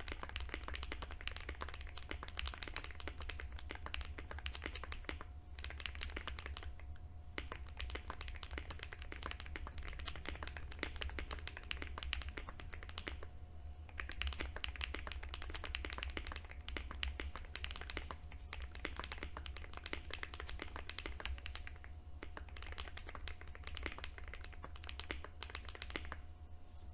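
Steady fast typing on a Glorious GMMK Pro mechanical keyboard with lubed Glorious Panda tactile switches, a polycarbonate plate and PBT keycaps: a dense run of key clicks with a few brief pauses. A faint steady tone runs underneath.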